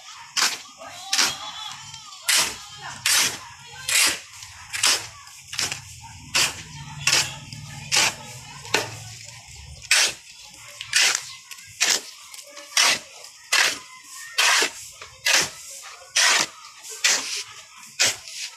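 Steel shovel scraping across a concrete pavement as it turns over a pile of sand-and-gravel mix, a steady rhythm of short scrapes a little more than one a second.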